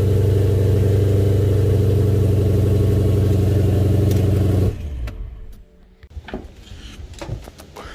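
Supercharged BMW E92 M3's S65 V8 idling steadily, running again after a no-start fault. The engine sound cuts off abruptly a little over halfway through, leaving only faint clicks and knocks.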